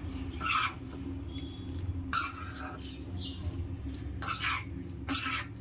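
A spoon stirring curd into cooked vegetables in a pan, about four short scraping strokes over a steady low hum.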